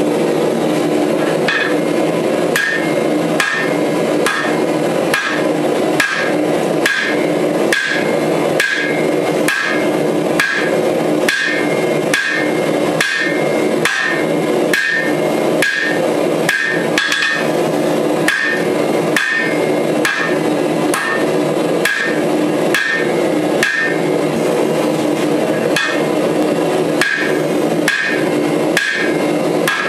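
Hand hammer forging hot wrought iron on a block anvil: a steady rhythm of about two blows a second, each with a short metallic ring. A steady rushing noise runs underneath.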